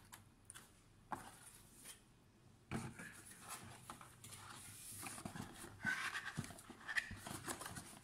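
Cardboard box and moulded paper-pulp packaging insert being handled: scraping and rubbing with small sharp knocks and ticks. It is sparse at first and becomes busier from about three seconds in.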